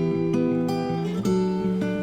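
Background music played on acoustic guitar: plucked notes and strummed chords changing every half second or so.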